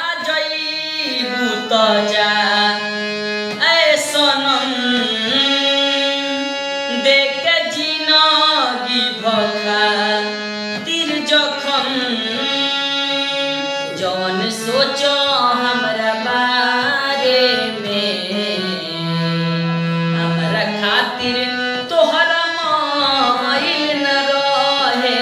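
A young man singing a slow, melodic Indian song, accompanying himself on a harmonium with long held notes.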